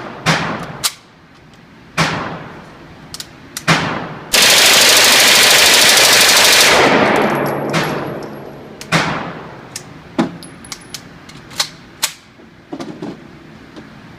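Heckler & Koch MP5 submachine gun in .40 firing unsuppressed. A few single shots, then one long full-auto burst of about two and a half seconds near the middle, its echo fading away after it, then more scattered single shots.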